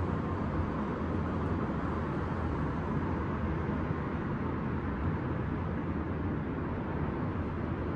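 Steady city ambience: a low, even rumble of distant traffic, with no single event standing out.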